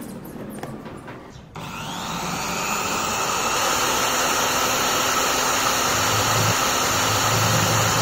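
Bench drill press's 710-watt brushed motor switched on about a second and a half in, its whine rising as it spins up, then running steadily at speed. In the later seconds a lower grinding sound is added as the 3 mm center drill bites into the nut.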